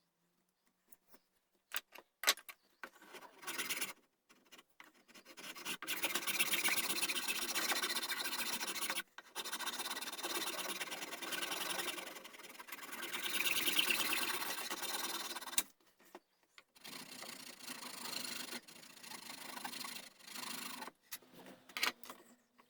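Hand tool scraping and rasping across the wooden gunstock while the cheek rest is shaped. A few light ticks come first, then long continuous rasping strokes with a brief break, then shorter strokes near the end.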